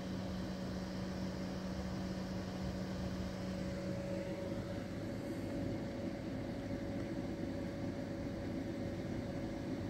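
Steady machine-like hum with a hiss, as from a fan or appliance running. A low hum tone in it stops about four seconds in, while higher hum tones carry on.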